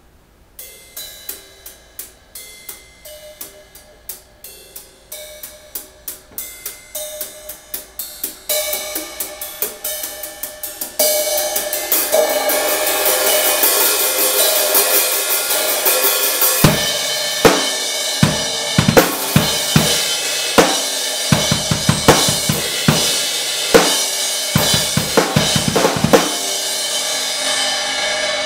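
Acoustic drum kit being played: it starts with quiet cymbal taps that come faster and louder, swells into a steady cymbal wash about eleven seconds in, and from about seventeen seconds heavy bass drum and drum hits come in under the cymbals.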